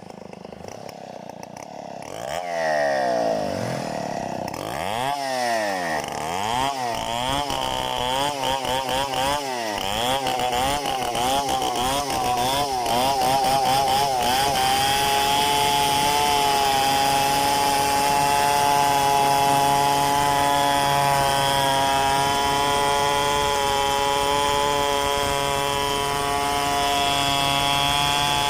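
Large two-stroke chainsaw revved up and down several times from about two seconds in, then held at steady high revs from about halfway, ripping lengthwise through a mahogany log in freehand milling.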